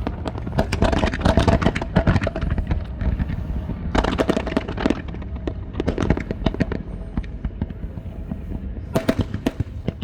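Fireworks display: a dense run of bangs and crackles that thins out after about five seconds, with another burst near the end.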